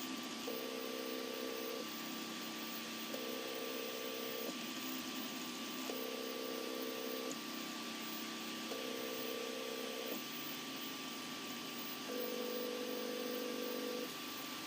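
Motors of a LEGO-built 3D printer running with a steady hum and hiss. A higher whine switches on and off in stretches of one to two seconds, about five times, as the axes move.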